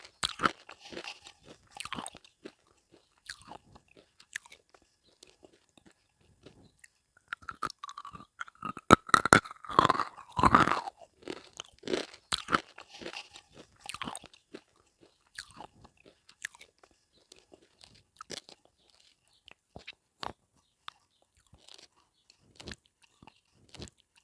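Close-miked biting and chewing of hard, brittle mineral pieces. The sharp crunches come irregularly, densest and loudest about a third of the way in, then thin out into sparser, fainter crunches.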